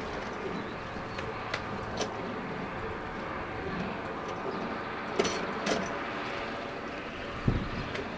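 Steady outdoor background noise with a faint hum, a few sharp clicks, and a low thump near the end.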